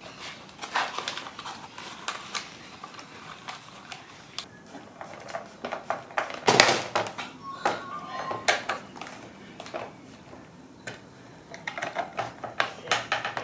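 Small clicks, taps and knocks of hands handling a Top RC Lightning 1500 RC glider on a workbench: the wing being seated on the fuselage, with one louder knock about six and a half seconds in. Near the end there is a quick run of clicks as the wing screws are turned with a screwdriver.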